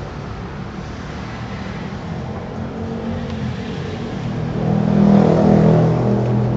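A motor vehicle's engine running, with a steady hum that grows louder about four and a half seconds in.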